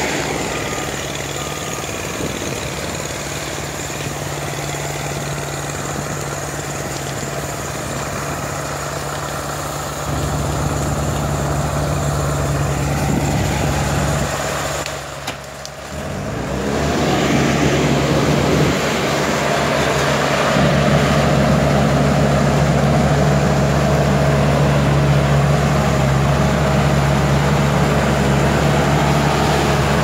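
Diesel engines of crawler bulldozers running steadily as they work. The sound dips briefly about halfway through and is louder in the second half.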